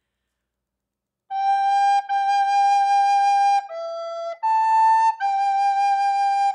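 Soprano recorder playing a slow phrase of separate tongued notes after about a second of silence: G, G, a lower E, up to A, then a held G.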